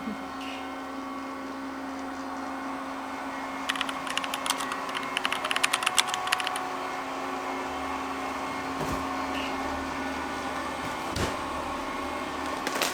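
A steady machine hum with one constant low tone, with a burst of rapid light clicking about four seconds in and a couple of single knocks later.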